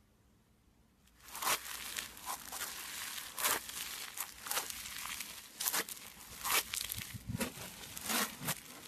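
Floam (foam-bead slime) being squished and kneaded by hand, crackling with frequent sharp pops and snaps, starting about a second in after near silence.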